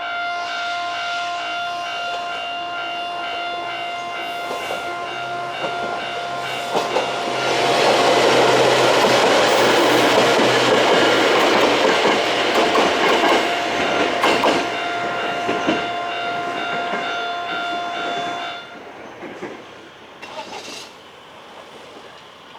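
Japanese level-crossing warning bell ringing with a steady repeating tone while a Choshi Electric Railway train passes through the crossing from about seven seconds in, its wheels clattering over the rail joints for several seconds. The bell stops about eighteen seconds in, once the train has cleared.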